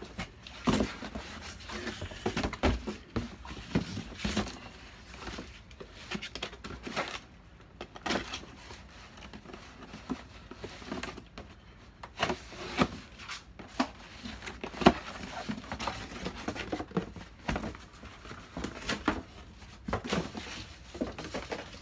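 Cardboard boxes being shifted and opened by hand, with a box cutter slitting the packing tape: irregular knocks, scrapes and rustles of cardboard.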